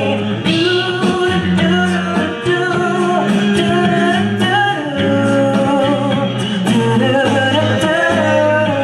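Male a cappella group singing in close harmony over a held low bass line, with sharp percussive clicks keeping the beat.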